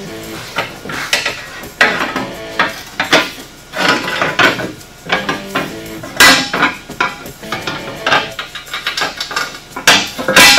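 Repeated sharp metallic clanks and rattles at uneven intervals as an aluminium A-arm skid plate is handled and knocked against the UTV's front lower A-arm during fitting.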